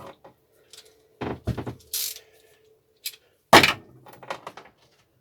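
A series of clunks and knocks from hand tools on a lawn mower's metal deck, the loudest about three and a half seconds in.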